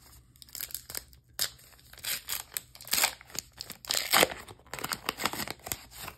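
Foil-lined wrapper of a Flesh and Blood Dynasty trading-card booster pack being crinkled and torn open by hand: a run of sharp crackles and rips, loudest about three and four seconds in.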